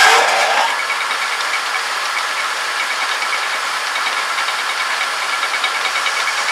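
Homemade metal lathe running steadily, its chuck spinning a 54 mm shaft, just after being switched on.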